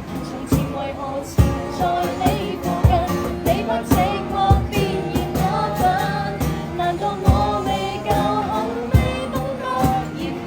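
A Cantonese pop song being sung over full musical accompaniment, with a singing voice and repeated drum hits.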